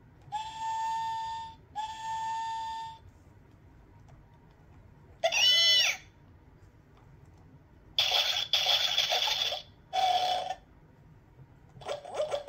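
Electronic sound effects from the speaker of a Fisher-Price Play-a-Sound book's button pad, played one by one as buttons are pressed. First come two steady, whistle-like tones, then a short warbling chirp a little after five seconds. After that come two rougher, noisier sounds, and a rapid run of short pulses at the very end.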